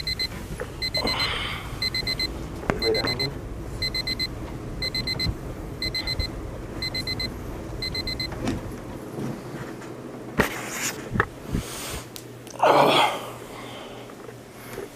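Digital alarm clock beeping its wake-up alarm in quick groups of short high beeps, repeating about once a second, until it stops about eight seconds in. Afterwards come a few soft knocks and a loud rustling burst near the end.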